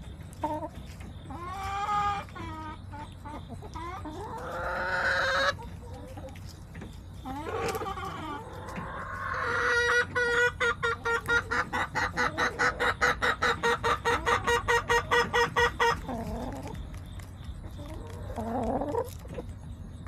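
Backyard chickens clucking and calling, with a few drawn-out calls. About halfway through comes a loud, rapid run of clucks, about four a second, lasting some six seconds before it trails off into quieter clucking.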